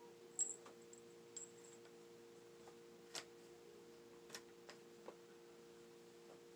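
A handful of sharp, light clicks and taps from handling a paintball gun while working to clear a barrel jammed with broken paintballs. The loudest click comes about half a second in. A faint steady hum runs underneath.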